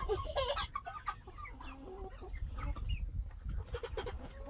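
Several chickens clucking, short calls from a number of birds one after another.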